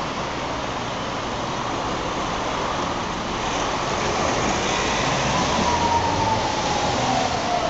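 Road traffic driving through a city intersection, cars and vans passing close by. From about halfway a thin whine rises out of the noise and slowly falls in pitch.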